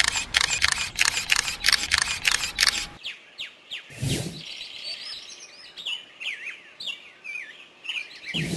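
Rapid clicking, about four clicks a second, for the first three seconds. Then a short whoosh about four seconds in, followed by birds chirping in quick rising and falling notes.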